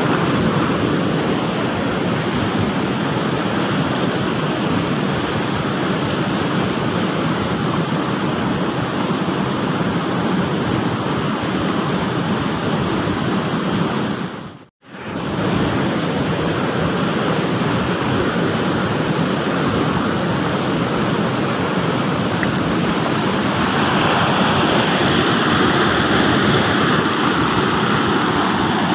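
Steady rush of flowing stream water. It cuts out for an instant about halfway through and turns a little brighter near the end.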